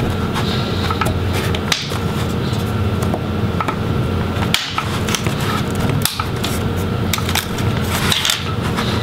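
Plastic pry tool working around an Alienware 15 R3 laptop's display bezel, with several sharp clicks a second or two apart as the bezel's plastic snaps are worked loose, over a steady low hum.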